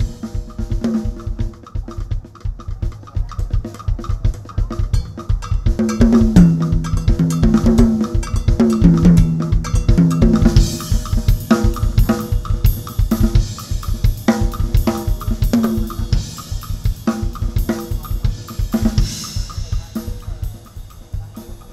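Drum kit solo played fast: rapid bass-drum strokes under snare and tom fills. Cymbal crashes come about ten seconds in and again near the end.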